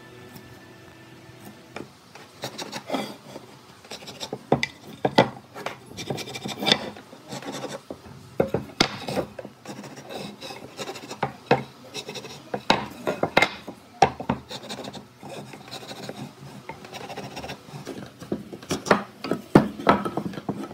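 Wood scraping and rubbing against wood, broken by irregular knocks and clatter as wooden boards are handled and shifted on a wooden workbench.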